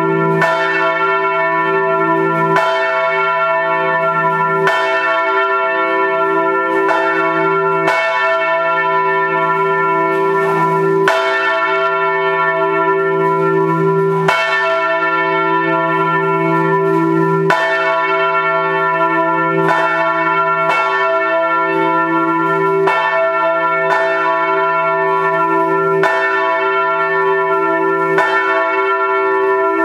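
Full peal of four church bells cast by Rincker in 1953, tuned e' g' a' c'' and swung on straight yokes, heard up close in the bell chamber. Their strikes fall in an irregular, overlapping pattern while the tones ring on without a break.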